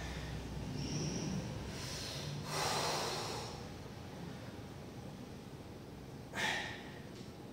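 A weightlifter breathing hard through a set of barbell curls: a long forceful exhale about two and a half seconds in, and a short sharp one near the end as the bar comes up.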